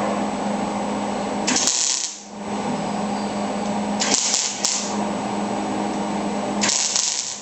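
Electric arc welding on a truck door's sheet metal: a steady crackle with a hum, breaking off briefly about two seconds in, then running on with a few short hissy flare-ups.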